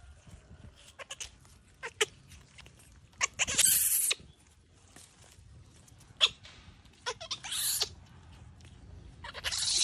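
Baby monkeys squeaking, then screaming three times in harsh, shrill bursts: about three seconds in, at about seven seconds, and near the end.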